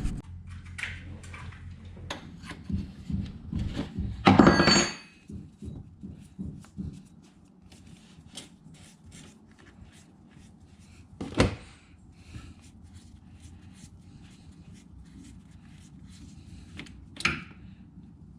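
Scattered clicks, knocks and clanks of tools and parts being handled as work on a car begins. There is a louder clatter about four seconds in and two sharp knocks later on.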